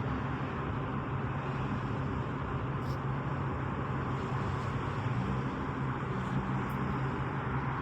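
Steady urban traffic noise: an even wash of road sound with a constant low hum under it.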